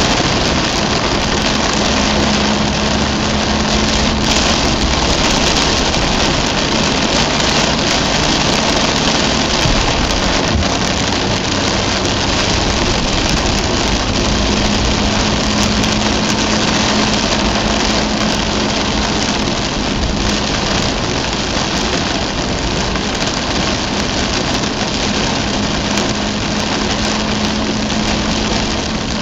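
Heavy rain on a Mazda RX-8's roof and windscreen and its tyres on the waterlogged road, heard from inside the cabin, a loud, steady rush. Under it the car's rotary engine hums at a steady pitch that fades in and out several times.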